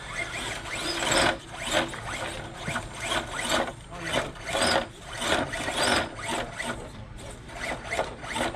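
Radio-controlled rock crawler's small electric motor and drivetrain whining in short bursts, the pitch rising and falling with each push of the throttle as it is driven over the course.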